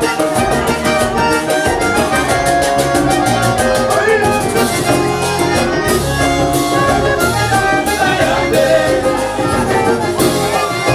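A live band plays an instrumental passage led by a button accordion, over a steady percussion beat.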